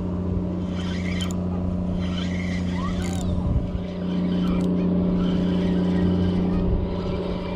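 An engine running with a steady low drone, getting louder about four seconds in, with a few short bird calls above it.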